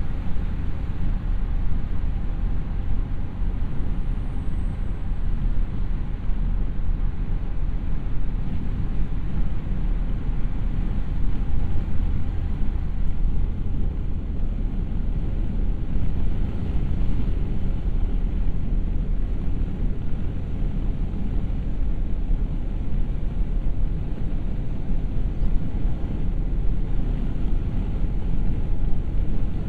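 Car running at a steady pace: a constant low rumble of engine and road noise with no changes in speed.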